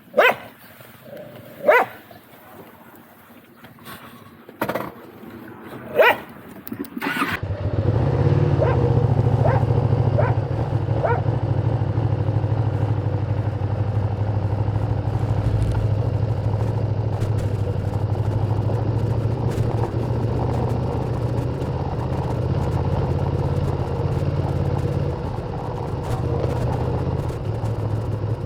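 A few short, sharp sounds, then about seven seconds in a Ducati motorcycle engine fires up and settles into a steady, low idle.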